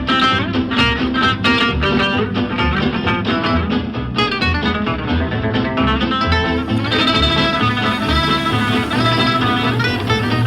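Instrumental background music led by a plucked guitar, over a steady bass line.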